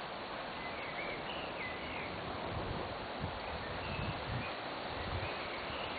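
River water flowing with a steady hiss, with a few short high bird chirps over it and irregular low rumbles of wind buffeting the microphone.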